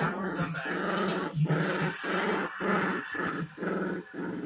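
Dogs growling in play while tugging on a rope toy: a long run of rough growls broken by brief pauses.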